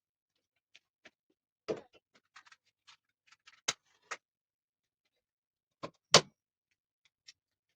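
Scattered clicks and knocks of objects being handled and set down, with sharper knocks at about two, four and six seconds in; the one near six seconds is the loudest.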